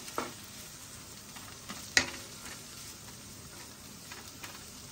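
Beef and diced nopales sizzling in a frying pan while a wooden spoon stirs them, with a single sharp knock about two seconds in.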